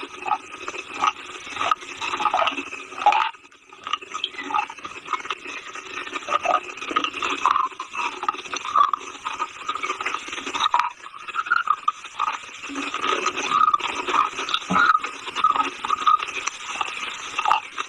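Close-miked crunching and chewing of brittle edible earth such as chalk, a dense run of gritty crackles and scrapes. There is a brief pause about three seconds in.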